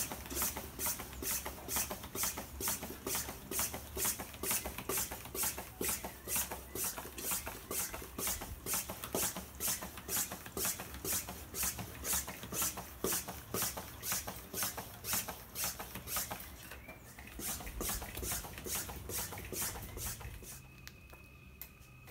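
Hand floor pump inflating a 29-inch mountain bike tyre: a hiss of air with each stroke, about two strokes a second. The pumping pauses about sixteen seconds in, resumes for a few slower strokes and stops about twenty seconds in.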